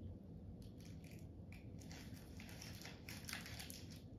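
Faint, irregular crackling and rustling clicks close to the microphone, denser in the second half, over a low steady hum.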